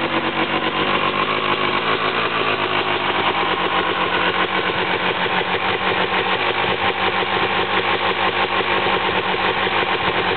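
1999 Honda CR250R two-stroke single-cylinder engine idling steadily with a rapid even pulse, cold, on its first start after a complete rebuild.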